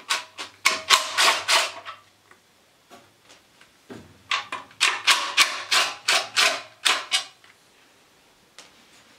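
Cordless drill/driver with a 10 mm socket spinning out the casing bolts on a small petrol engine: rapid rattling metal clicks over a low motor hum. There are two runs, one in the first two seconds and a longer one from about four to seven seconds.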